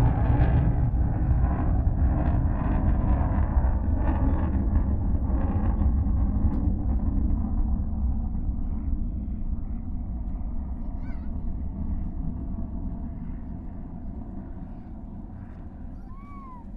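Military jet engine noise heard from about 2 km away: a deep rumble that steadily fades as the jet moves off. A bird chirps briefly near the end.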